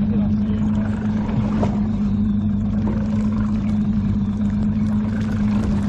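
Fishing boat's engine running with a steady low hum at a constant pitch.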